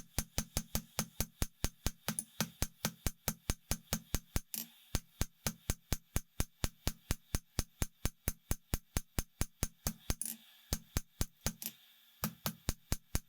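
Rapid, even hammer blows on hot mild steel over the anvil, about four a second, drawing out a bar; the hammering pauses briefly about four and a half seconds in, again near ten seconds and around twelve seconds.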